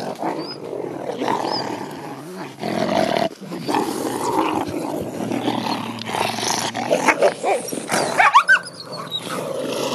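Wolves growling at close range as they jostle and greet one another, with a burst of high rising whines or yelps about eight seconds in.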